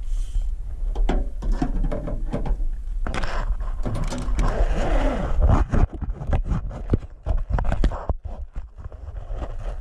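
Handling noise in an aluminium fishing boat: a low rumble with scraping and a run of sharp knocks and clicks, which come thickest from about six seconds in.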